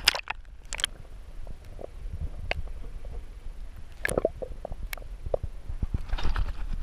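Muffled underwater sound heard through a submerged GoPro housing: a low rumble with scattered sharp clicks and knocks. Near the end, water sloshes and splashes as the camera breaks the surface.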